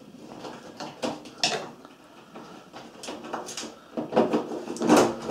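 A screwdriver works the rear screws that hold a washing machine's twin inlet solenoid valve, with irregular plastic clicks, knocks and scrapes as the valve is worked loose. The knocks are loudest near the end.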